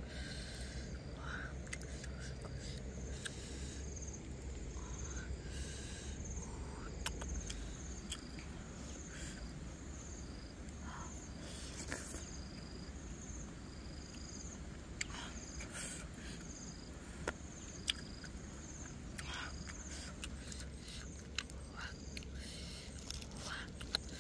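Close-up eating sounds: soft clicks and smacks of chewing and of flesh being pulled from roasted fish, with short high chirps repeating in the background.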